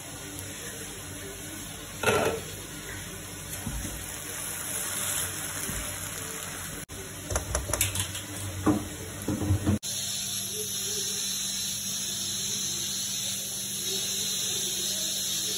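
Pasta sizzling in a nonstick frying pan as it is stirred, with knocks and scrapes of utensils against the pan about two seconds in and a quick cluster between about seven and nine and a half seconds. The sound then switches abruptly to a steady, even hiss.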